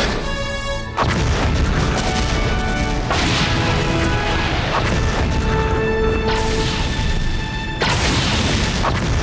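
Loud explosion booms from a televised giant-robot battle over dramatic background music, with fresh blasts hitting about a second in and again near the end.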